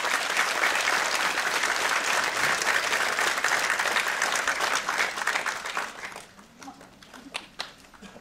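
Audience applauding, the clapping dying away to a few scattered claps about six seconds in.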